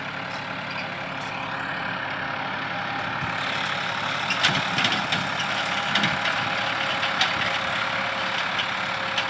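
Tractor's diesel engine running steadily as it pulls a tillage implement through the soil while ploughing, with a few sharp knocks from about four seconds in.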